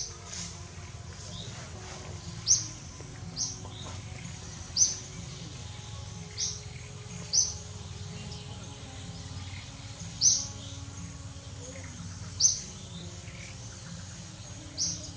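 A bird giving short, high-pitched chirps, repeated at irregular gaps of one to two seconds, over a steady low background hum.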